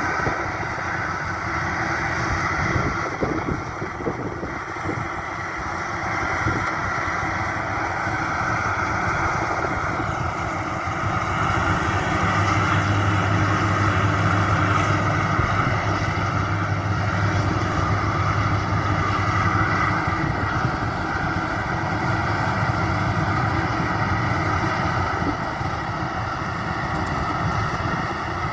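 Maxxi Bimo 102 rice combine harvester running steadily while harvesting, a continuous machine drone. It grows a little louder around the middle, where a deeper steady hum joins in.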